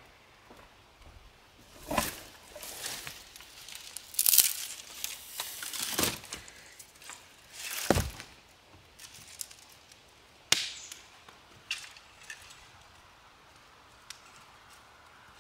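Dry sticks snapped by hand: about six sharp cracks a second or two apart, with the rustle of twigs between them.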